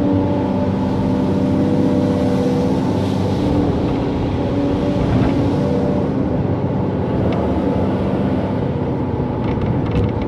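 Hydraulic excavator's diesel engine running steadily, with a few short clicks near the end.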